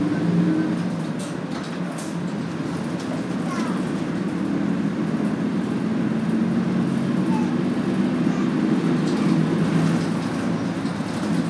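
Nishitetsu city bus engine and running noise heard from inside the passenger cabin: a steady low hum over road noise.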